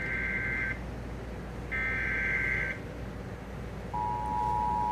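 Emergency Alert System SAME header bursts: two high-pitched warbling digital data bursts of about a second each, a second apart, opening the relay of a flash flood warning. About four seconds in, the steady two-tone EAS attention signal begins.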